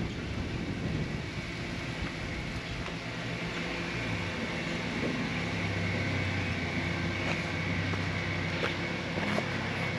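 A steady low mechanical hum, like a motor or engine running, growing slightly louder about halfway through.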